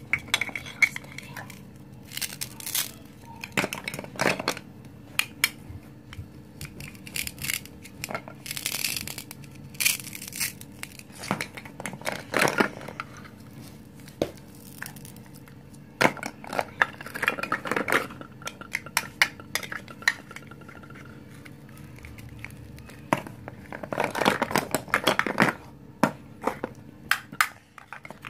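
Hard plastic toy food pieces clacking and knocking against each other and the table as hands rummage through them, in irregular clicks, with a few longer rasps as hook-and-loop fastened halves are pulled apart.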